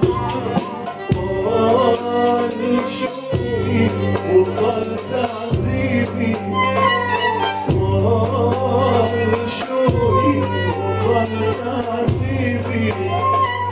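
Violin playing an ornamented, wavering Arabic melody over a band. Held bass notes change roughly every two seconds beneath a steady run of percussion strikes.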